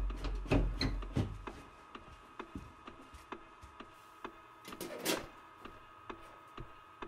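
Footsteps on wooden basement stairs: heavy thuds and creaks in the first second or so, then soft footfalls over a faint steady hum. About five seconds in, a louder metallic click and rattle as the metal door of a household breaker panel is opened.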